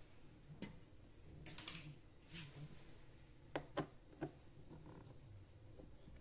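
Quiet handling of a PVC-pipe speaker enclosure: a couple of soft scrapes, then three sharp clicks in quick succession a little past halfway as a screwdriver tip is set against a screw in the switch panel.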